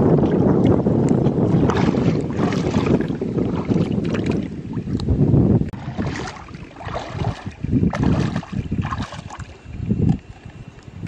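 Shallow water sloshing and splashing as someone wades and handles things in it, in irregular bursts. Wind buffets the microphone with a loud rumble through the first half.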